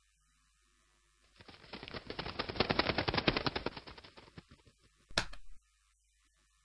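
Cartoon sound effects: a rapid fluttering clatter of a bird's wing flaps, about a dozen ticks a second, that swells and fades over about three seconds. About five seconds in comes a single sharp smack as the bird crashes into a wall.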